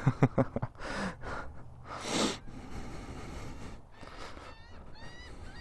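A person breathing and sniffing hard through the nose, with the loudest sniff about two seconds in, while he has a head cold. Near the end several seagulls call faintly, one after another.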